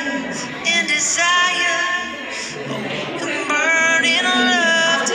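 A high voice singing a song in long held notes, some of them sliding down in pitch, phrase after phrase with short breaks between.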